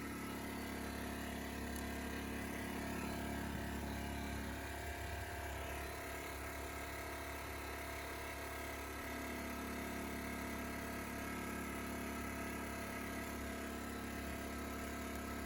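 Ryobi RIG1000 inverter generator's small engine running steadily with the choke off, its note changing slightly for a few seconds in the middle.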